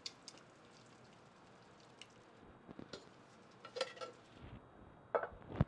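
Canned diced tomatoes sliding out of a metal can into a stainless steel stockpot. A few faint soft knocks and plops, a brief metallic clink of the can about four seconds in, and two louder knocks near the end.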